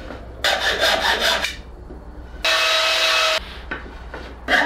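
Syntactic foam being carved and rasped at a workbench: two stretches of rough, rapid scraping, with about a second of steady, even tool noise in between.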